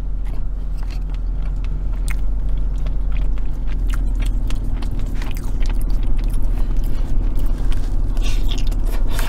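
Chewing and biting with many small mouth clicks, from someone eating spaghetti in marinara sauce. A plastic fork scrapes in a plastic takeout tray as noodles are twirled, and a large forkful is bitten near the end.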